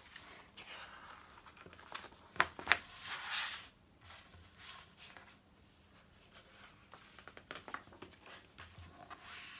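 A paper instruction leaflet rustling and crinkling as it is unfolded and smoothed out on a table, in several short bursts, with two sharp taps a little after two seconds in.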